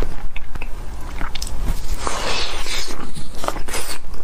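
Close-miked biting and chewing of a soft salmon sushi cup topped with mango and cream: wet mouth clicks and squelches, with a short hissing sound about two seconds in.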